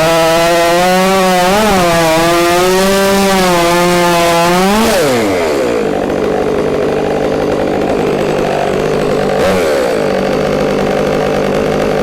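Stihl 500i fuel-injected two-stroke chainsaw cutting through an oak log at full throttle, its pitch wavering under load. About five seconds in, it breaks through, revs up briefly and drops to idle. It idles for the rest of the time, with one short blip of the throttle partway through.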